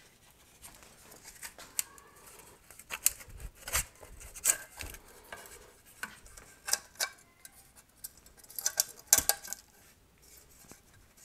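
Metal motor parts handled on a workbench: irregular clinks, scrapes and knocks as the thin black nameplate band of a vintage single-phase electric motor is slid off its wound stator and turned over, with a sharper cluster of knocks late on.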